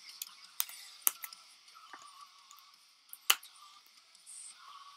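Foil trading-card booster packs being handled and cut open: scattered crinkles and small clicks, with a few sharp snaps, the loudest about three seconds in.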